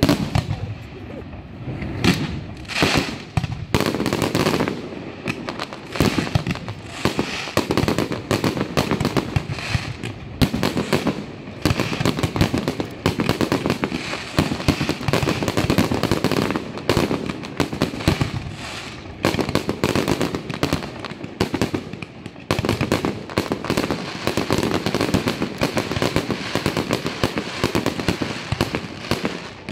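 Aerial fireworks display: shells bursting and crackling in a dense, near-continuous barrage of bangs. There is only a short lull near the start.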